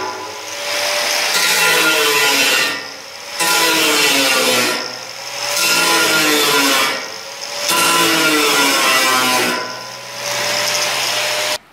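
Angle grinder with a cutting disc slicing through the sheet-metal side of a bathtub, in about five loud cutting passes separated by short lulls. The motor's pitch drops as the disc bites into the metal, and the sound stops abruptly near the end.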